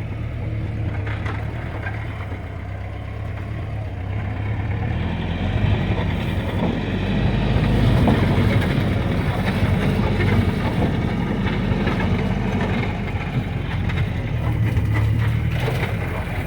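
A 1959 Jeep's engine running steadily as the Jeep pushes through sagebrush, with brush crackling and scraping against the vehicle. The engine gets louder from about six seconds in.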